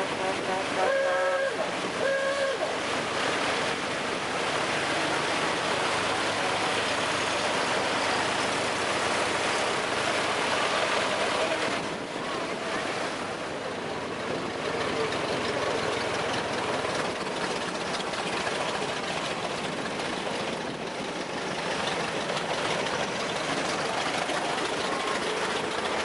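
Vintage Ford cars driving past one after another, their engines running under a steady rushing noise, with two short horn toots about a second and two seconds in.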